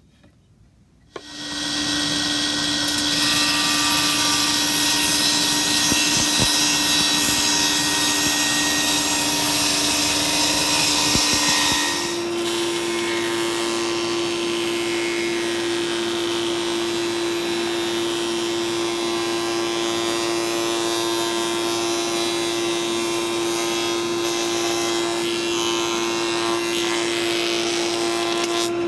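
A powered saw starts up about a second in and cuts a length of oak moulding: a loud, steady noise with a hum under it. About twelve seconds in, the hum steps up in pitch and the level drops a little, as the blade comes out of the cut and runs free.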